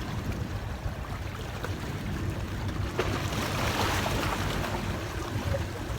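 Sea waves hitting rocks: one wave breaks suddenly about halfway through and washes off over a second or two, over a steady low rumble.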